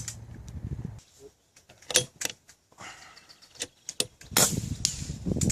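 Handling noise from the homemade .357 air rifle between shots: several sharp metallic clicks and clacks, the loudest pair about two seconds in, with rustling near the end.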